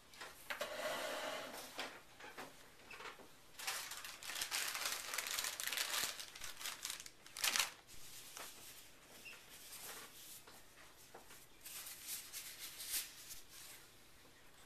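Crinkling and rustling of a plastic package and thin disposable gloves being handled and pulled on, in several bursts, with one sharper crackle about halfway through.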